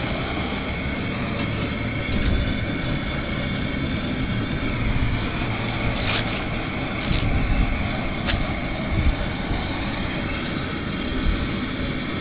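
Propane turkey-fryer burner running with a steady roar. A few light clanks come from the aluminium stockpot as it is handled and set onto the burner.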